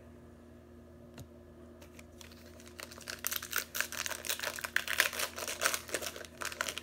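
Crinkling and tearing of a trading-card pack wrapper as it is peeled open by hand, a dense run of crackles starting about two seconds in.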